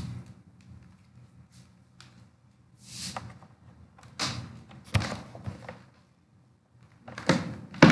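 Several separate knocks and thuds, a second or so apart, with a denser cluster of them near the end.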